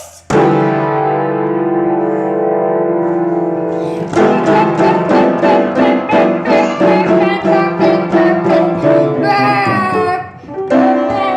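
Piano playing: a chord struck just after the start and held for a few seconds, then a quick run of notes at about four to five a second.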